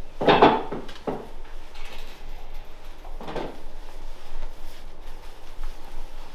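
Clothing rustling as a dark suit vest and jacket are pulled on and adjusted: three short swishes of fabric, the loudest right at the start, another about a second in and one a little past three seconds.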